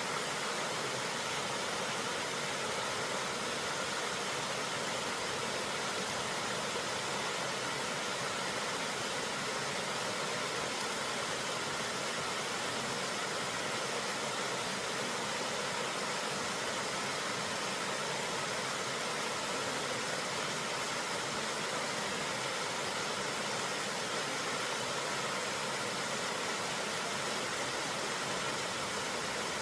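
Valley stream water flowing, a steady, unbroken rush of running water.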